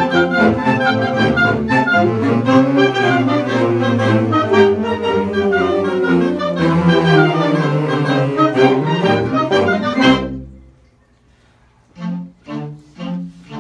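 Woodwind choir of clarinets and saxophones playing a march in full ensemble, stopping together about ten seconds in. After a short pause it starts again with short, detached repeated notes, about two a second.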